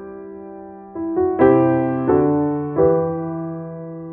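Background piano music: soft notes and chords struck about every two-thirds of a second, each left to ring and fade.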